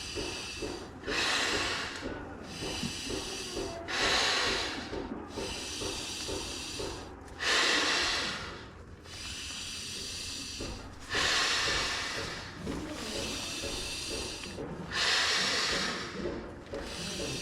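A person blowing hard into a sleeping pad's inflation valve: about six long, hissing blows, each followed by a quick breath in. The valve has been left open, so the air leaks back out and the pad is not filling.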